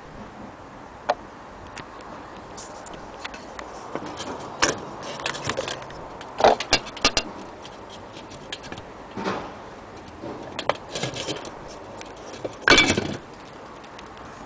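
Irregular light clicks and clinks, like small hard objects being handled, with a louder cluster near the end.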